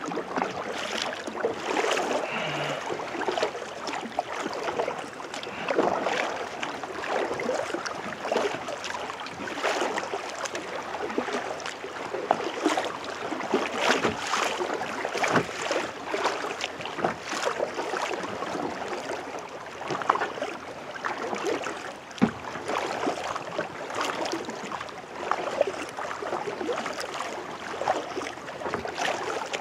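Kayak paddle strokes dipping and splashing in the water, with dripping between strokes, at an uneven rhythm.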